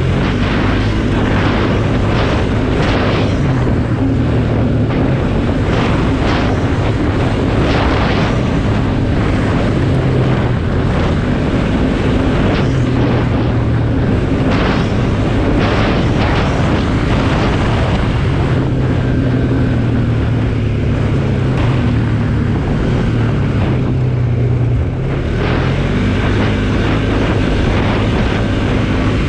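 Polaris ATV engine running under way at riding speed, its pitch stepping up and down as the throttle changes, with wind noise on the microphone.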